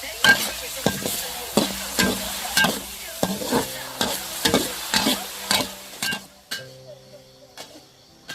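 Food sizzling in a hot pan while a spatula stirs and scrapes it, about two strokes a second. The sizzle stops about six seconds in, leaving only a few light clicks.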